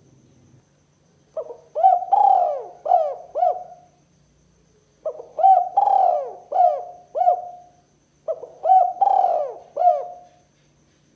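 Spotted dove (tekukur) cooing: three phrases, each a short note, a longer drawn note, then a few quick clipped coos.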